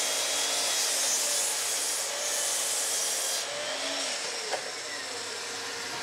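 Bosch sliding mitre saw running and cutting through a 4x2 of construction timber, a steady loud sawing noise with the motor's pitch wavering under load. About three and a half seconds in the hiss of the cut lessens while the motor keeps running, and there is a single click about a second later.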